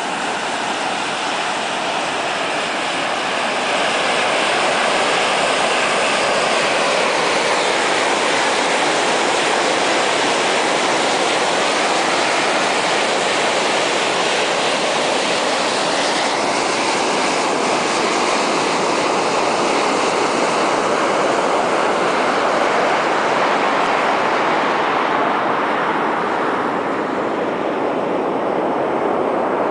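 Steam jetting from a geyser vent, a steady loud hiss. The hiss turns duller near the end.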